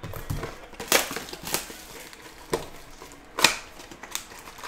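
Plastic shrink wrap being torn and peeled off a cardboard trading-card box: a rustle broken by about five sharp crackles and snaps.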